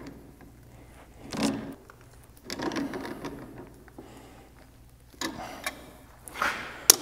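Hand-tool work on a tractor's loader joystick: pliers and metal fittings giving scattered scrapes, rattles and clicks, with one sharp metallic click near the end.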